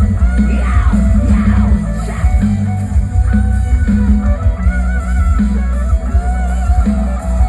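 Loud amplified music with a heavy, pulsing bass beat and a plucked-string melody over it.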